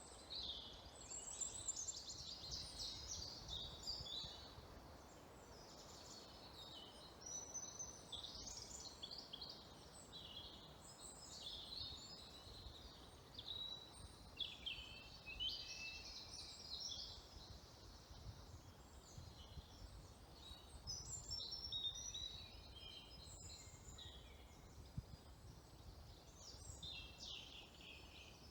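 Woodland songbirds singing, short chirping and warbling phrases again and again with brief pauses, over a faint low background rumble.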